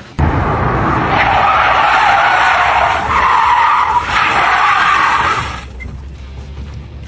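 A loud, harsh screech like skidding or scraping. It starts abruptly, holds steady for about five seconds with two brief dips, then falls away.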